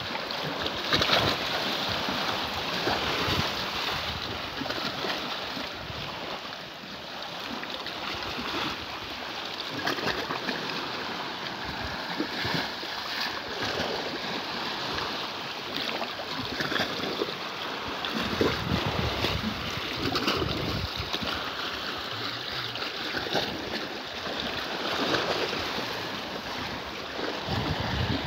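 Shallow seawater lapping and splashing close by, with small waves washing against rocks in an uneven rushing wash of short swells.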